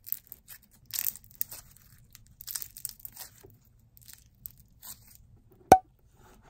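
Clear slime with cubes in it being squeezed in a fist, giving crunchy, crackling squelches, loudest about a second in and again around two and a half to three seconds. Near the end, one sharp knock.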